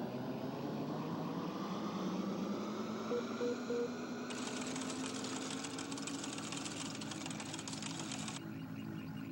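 Electronic sci-fi machine sound effects: a steady hum rising in pitch, three short beeps, then a rapid rattling hiss for about four seconds that cuts off suddenly, with the hum running on underneath.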